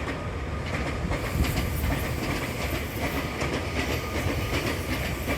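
Meitetsu electric train passing over a level crossing, wheels clattering over the rail joints above a steady low rumble. A higher rushing noise builds about a second in.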